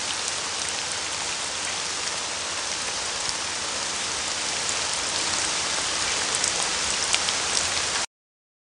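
Baby sleep comforter's small speaker playing its recorded rain sound: a steady hiss with scattered drop ticks, getting a little louder in the second half and cutting off suddenly near the end.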